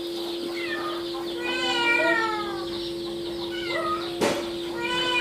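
A cat meowing several times, the longest meow about two seconds in. A steady hum sits underneath, and a sharp knock comes a little past four seconds.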